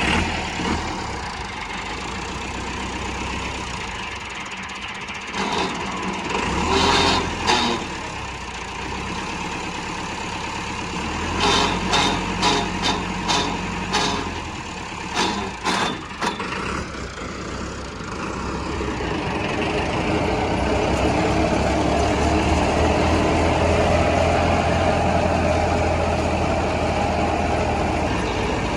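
Massey Ferguson 385 tractor's four-cylinder diesel engine running under load, driving a thresher. Bursts of clatter come about seven seconds in and as a quick run of knocks from about eleven to sixteen seconds in. From about nineteen seconds in the machinery settles into a louder, steady drone.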